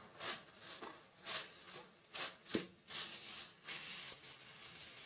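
A spatula stirring and scraping soa bhaji (dill greens, potato and tomato) around a metal kadhai to mix in the spices. Faint, in a run of short scraping strokes, with a sharper click about two and a half seconds in.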